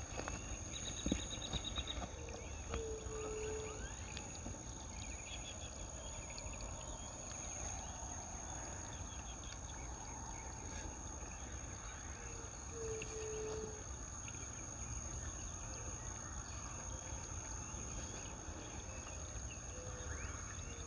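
Quiet riverside ambience with a steady high insect drone. Short high trills from birds come in near the start, and a brief low call is repeated three times, several seconds apart.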